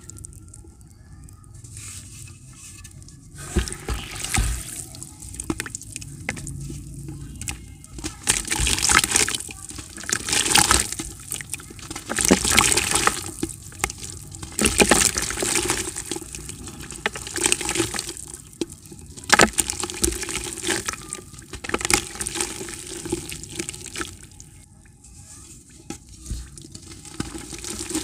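Blocks of dry grey dirt crushed by hand, with crumbs and powder pouring and splashing into a bucket of water in irregular bursts every second or two.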